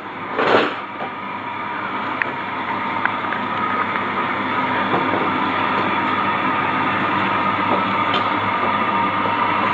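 Beko tumble dryer running: a steady whirring hum with a high steady tone in it, growing louder over the first couple of seconds and then holding level. A brief sharp sound comes about half a second in.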